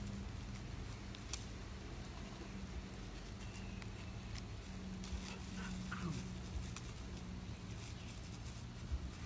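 Scattered light clicks and taps of a puppy's claws on concrete, over a steady low hum.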